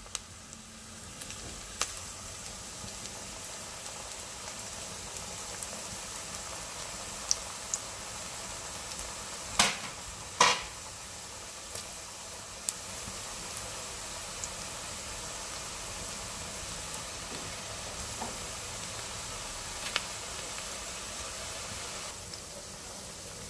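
Onion bhajiya (battered onion fritters) deep-frying in hot oil in a steel kadai: a steady sizzle with scattered small pops and crackles. Two louder sharp clicks come about ten seconds in.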